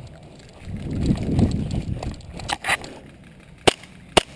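A low rumbling noise on the microphone for about a second, then a few light clicks and two sharp airsoft gun shots about half a second apart near the end.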